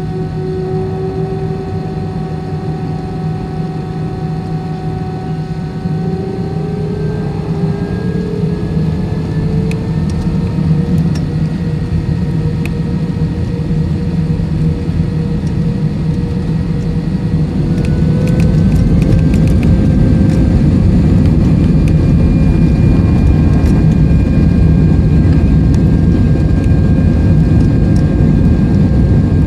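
An Airbus A320's jet engines heard from inside the cabin, spooling up for takeoff: a deep roar with a whine that rises in pitch. The roar grows louder, stepping up about two-thirds of the way through as takeoff thrust is set and then holding steady.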